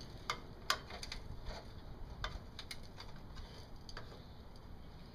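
Faint, irregular clicks and taps from hands handling a bird feeder while working a bird's stuck head free.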